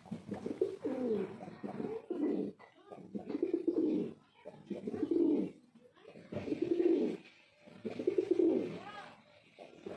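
Male domestic pigeon cooing: a series of low, throaty coos, each phrase about a second long, repeated roughly every second and a half.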